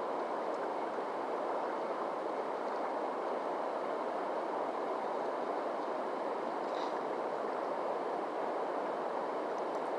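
Steady rush of flowing water, even and unbroken, with a faint tick about seven seconds in.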